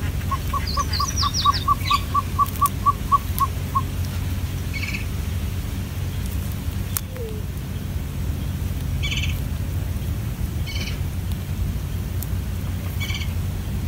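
Birds calling: a quick run of about a dozen even, piping notes at about four a second, mixed with high chirps, over the first few seconds. A few single short chirps follow, several seconds apart, over a steady low rumble.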